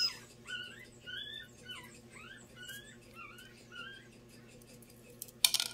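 A puppy whimpering: a run of short, high, squeaky cries, two or three a second, dying away about four seconds in. A brief rustle or clatter follows near the end.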